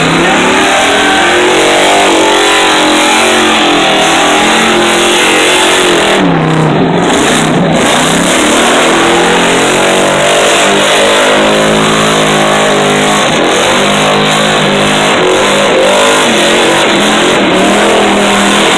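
Car engine revving hard during a tyre-smoking burnout, its pitch rising and falling as the throttle is worked, over a dense rushing noise.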